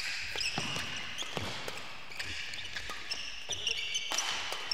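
Doubles badminton rally: several sharp racket strikes on the shuttlecock, with shoes squeaking on the court between them.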